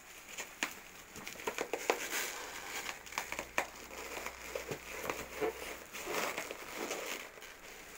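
Bubble wrap crinkling and crackling as a wrapped box is handled and worked out of a cardboard shipping carton, with irregular sharp crackles over a rustle.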